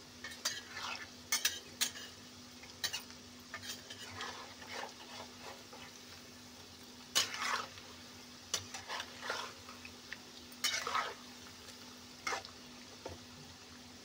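Onion pakodas deep-frying in a kadhai of hot oil with a faint sizzle. A slotted spatula stirs and scrapes through them in a dozen or so short, irregular strokes against the pan.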